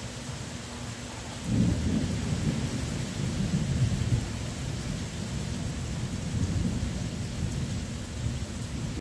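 Steady rain falling on wet concrete, with a long low roll of thunder that breaks in about a second and a half in and keeps rumbling, slowly easing.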